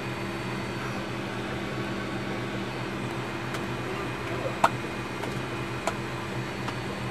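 Steady hum of fans and electrical equipment in the cockpit of a parked Lockheed L-188 Electra, with a few fixed tones in it. Two sharp clicks cut in, a loud one about four and a half seconds in and a softer one about a second later.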